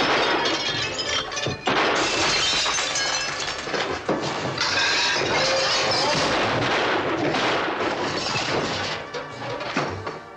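Loud dramatic film score, with crashing and glass shattering over it. The music eases off near the end.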